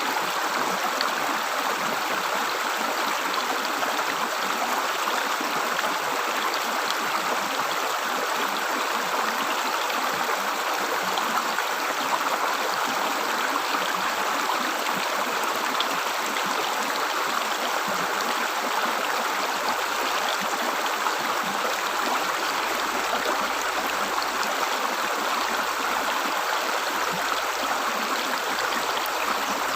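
Shallow river water gurgling and rushing over rocks, a steady, unbroken flow with no let-up.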